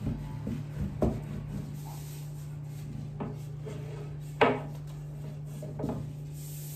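Long thin wooden rolling pin working a thin sheet of baklava dough on a wooden board: the dough rubbing and rustling over the pin, with four knocks, the loudest about four and a half seconds in. A steady low hum runs underneath.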